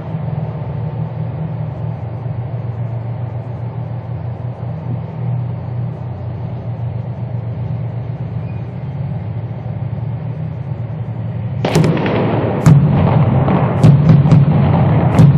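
Tank and armoured-vehicle diesel engines running with a steady low drone. About twelve seconds in, gunfire breaks out: a sudden loud burst followed by a string of sharp shots.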